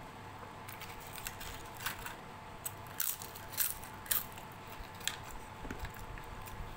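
Fried papad being bitten and chewed: a run of crackling crunches, loudest in the middle.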